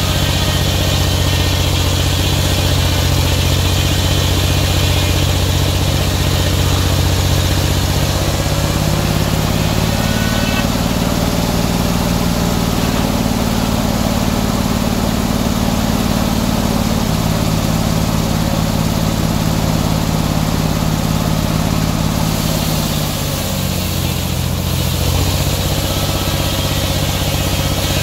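Antique circular sawmill sawing a pine log: the big blade and its power unit run steadily, and the sound deepens and grows heavier as the blade takes the cut about 8 seconds in, then eases back to the free-running note around 23 seconds as the cut ends and the carriage returns.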